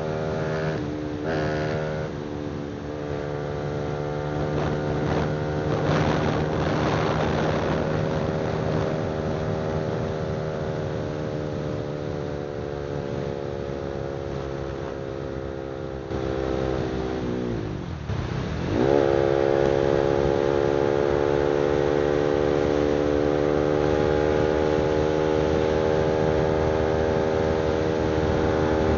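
Honda CBR300R single-cylinder engine running through an aftermarket exhaust while riding, its note holding steady and slowly sagging. About seventeen seconds in the pitch drops and then climbs quickly as the throttle opens again, and it settles on a higher, louder steady note.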